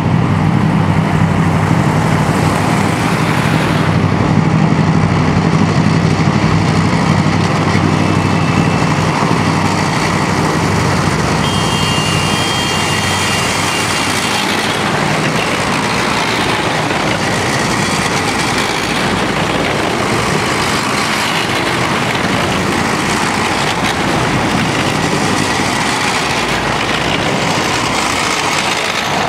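Loud, steady engine noise of a column of military vehicles driving past: wheeled armoured personnel carriers, army trucks and a tracked carrier. A deep engine hum is strongest in the first half.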